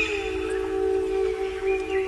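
Ambient background music: a steady held drone with a few faint high whistle-like tones over it.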